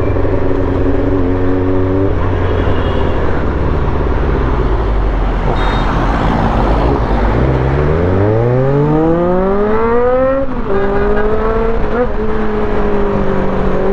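Honda CB400 Super Four's inline-four engine idling, then revved smoothly up for about three seconds from some seven seconds in and dropping straight back to a steady idle. The engine is running on freshly rebuilt carburettors with new pilot jets, slow jets and float valves, its mixture screws set at two turns.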